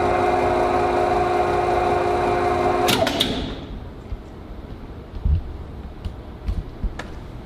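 Three-phase electric motor running with a steady hum, then about three seconds in the contactors clack and the motor is plug-braked, briefly put into reverse, and stops within about half a second. A few light clicks and thumps follow.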